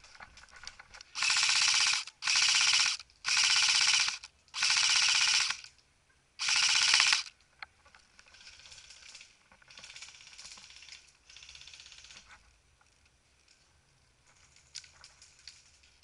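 Airsoft rifle firing on full auto in five short bursts of rapid shots over about six seconds. Three fainter bursts of automatic airsoft fire follow from farther away.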